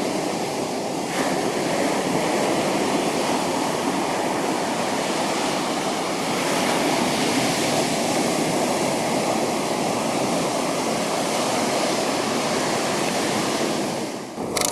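Ocean surf washing onto the beach, a steady rushing noise that swells slightly about a second in and again midway, with some wind on the microphone.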